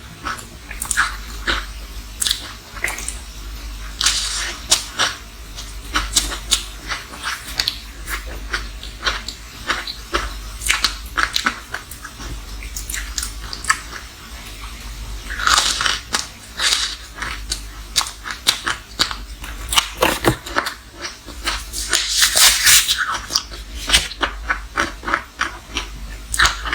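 Close-miked crunching and chewing of frozen matcha green tea ice: a dense run of sharp, brittle crunches, with longer grinding crunches about 15 seconds in and again about 22 seconds in.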